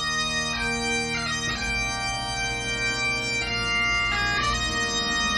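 Great Highland bagpipe playing a slow tune: held chanter notes changing over the steady drones.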